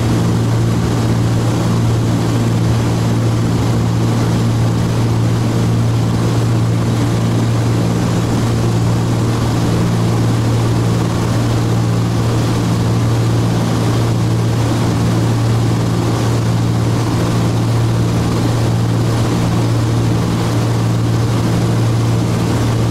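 Cabin drone of the Cessna T303 Crusader's twin turbocharged six-cylinder Continental engines and propellers in flight at climb power, a steady low hum with a faint slow throb.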